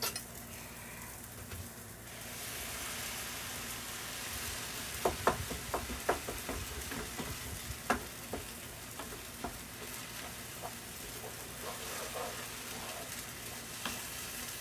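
Vegetable stock added to a hot pan of mashed refried beans, sizzling; the sizzle swells about two seconds in. A few seconds later a spoon knocks against the pan several times as the beans are stirred.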